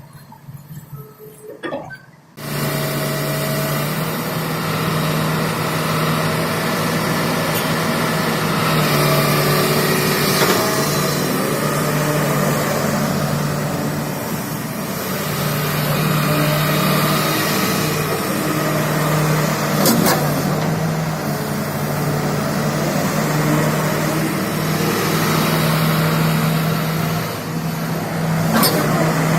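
Hitachi 330H hydraulic excavator's diesel engine running steadily, cutting in suddenly about two seconds in. Its level swells and eases as it works, with a few sharp knocks near the middle and the end.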